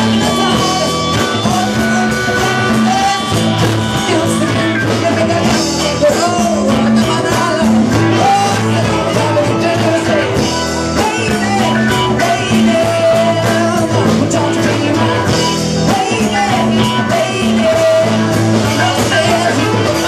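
Live rock band playing a song, with acoustic and electric guitars over drums.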